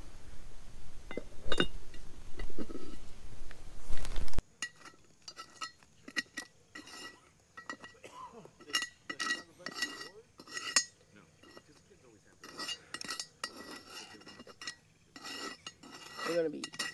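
Metal utensils clinking and scraping against metal camp cookware, many short strikes that each ring briefly. For the first four seconds a steady hiss with a few knocks lies under it, and then it stops abruptly.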